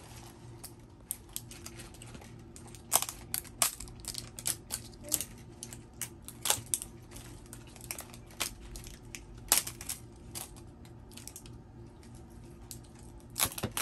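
Plastic toy packaging being handled and pulled open: irregular crinkling with sharp clicks and taps.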